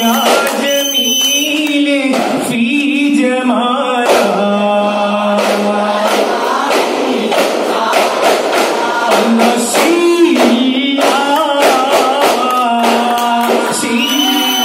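Daff muttu: a group of boys singing in chorus while beating daff frame drums in rhythm.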